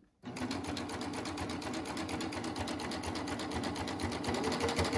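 Baby Lock Triumph serger starting up and running steadily with a fast, even stitching rhythm, stitching a knit strip through its bias binder attachment to test the binding fold. A higher hum joins near the end.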